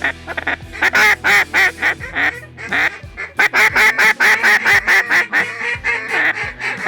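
Loud, rapid run of duck-like quacks and honks, several calls a second, of waterfowl calling as birds are worked in toward the blind.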